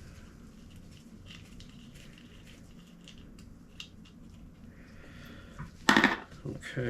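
Faint scattered clicks and ticks of a hex key and small metal bike parts while the bolt holding the rear derailleur hanger is undone. About six seconds in there is a short, much louder burst as the part comes off.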